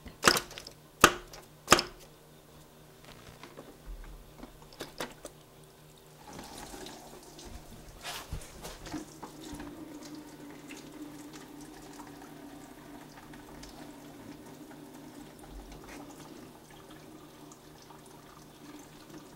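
Three sharp thumps of a rubber mallet on a car's water pump, knocking it loose to break the gasket seal against the engine block. Then coolant trickles and splashes steadily out of the opened joint into a drain pan below.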